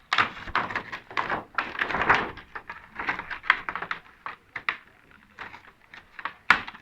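Quick clicking, crackling and scraping as glued LED backlight strips are pried and peeled off the inside of a Toshiba LED TV, with a sharp click near the end. The strips had been stuck down with glue because they would no longer hold.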